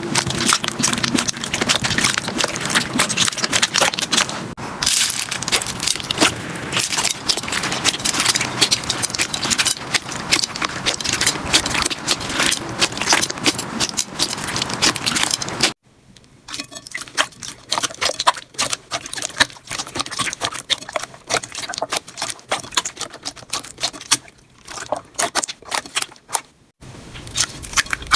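Slime being squeezed and poked by hand, giving dense crackling and popping clicks. About 16 s in it cuts to a quieter slime with sparser clicks.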